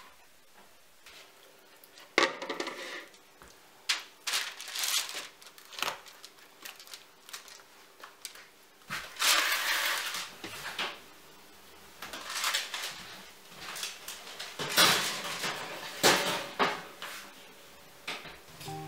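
Kitchen clatter as a metal baking tray and other kitchenware are handled: a series of knocks and clanks with some rustling. The loudest is a sharp clank with a brief metallic ring about two seconds in, and there are more loud knocks near the end.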